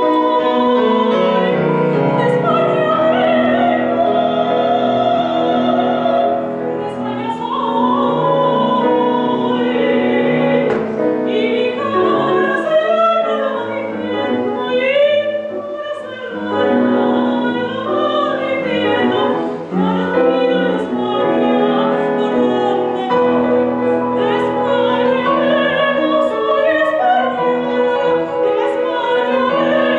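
A soprano singing a Spanish zarzuela aria in full operatic voice, holding notes with vibrato, accompanied by grand piano.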